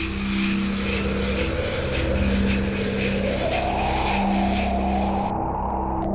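Eerie film sound design: a low droning hum that pulses on and off about every two seconds, with a whooshing swell that rises and falls in the middle. A high hiss cuts off suddenly near the end.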